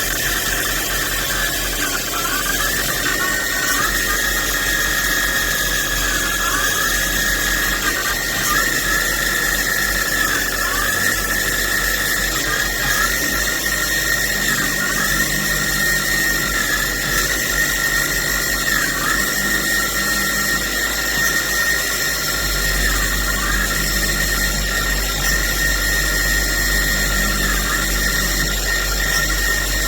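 DIY CNC lathe turning a part: a steady high-pitched whine that dips briefly in pitch every few seconds as the machine works. A low hum grows louder about 22 seconds in.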